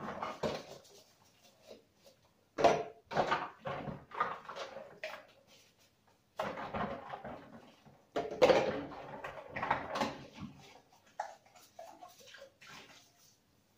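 Baby bottles being washed by hand at a kitchen sink: water splashing and plastic and glass knocking in irregular bursts.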